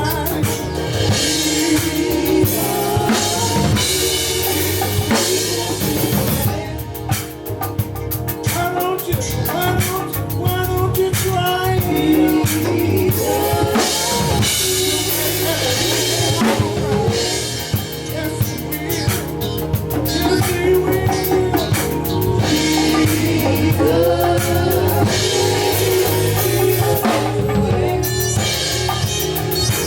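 A band playing a song, with a drum kit's snare and bass drum driving it over bass and melodic instrument lines.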